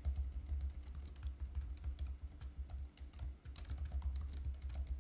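Typing on a computer keyboard: a quick, irregular run of key clicks over a low steady hum.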